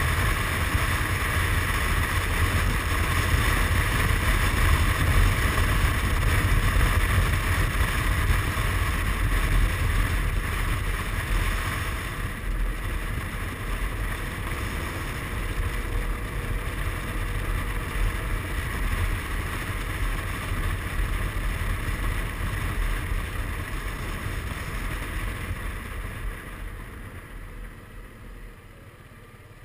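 Wind rushing over the microphone together with the Suzuki Burgman 400 maxi-scooter's single-cylinder engine and tyre noise at riding speed. The rush eases about twelve seconds in and fades further near the end as the scooter slows for a bend.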